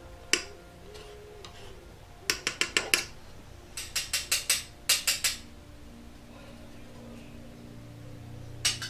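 A metal palette knife tapping and clinking against a hard slab while mixing pigment and gum arabic into homemade watercolour paint. There is a single sharp tap, then quick runs of three to five taps between about two and five seconds in, and a few more near the end, over faint background music.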